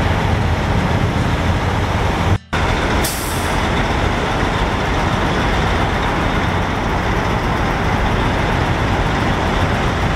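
Semi truck diesel engine idling with a steady low rumble. About three seconds in there is a short hiss of compressed air, like an air brake releasing. Just before it, the sound drops out for a moment.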